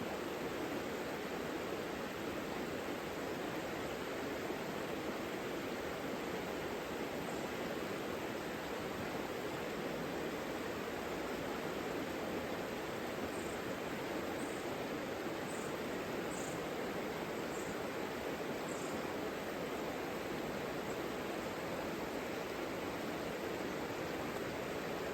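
The Savica river flowing, a steady, even rush of water. Partway through come a few faint, short, high chirps.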